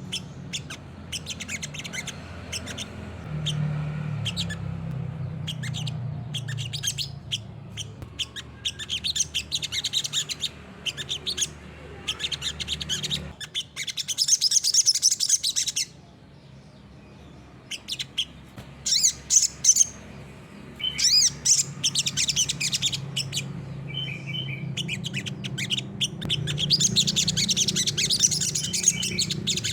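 Olive-backed sunbird (sogok ontong, sriganti) singing energetically in rapid bouts of high-pitched chirps and fast trills, broken by short pauses. A low steady hum runs underneath.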